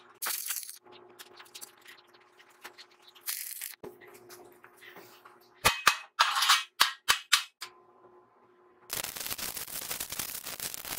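Stick (arc) welding on steel plate: two short crackling tack welds, then several sharp hammer strikes on the weld, chipping off slag, then a steady crackling weld run that starts about four-fifths in.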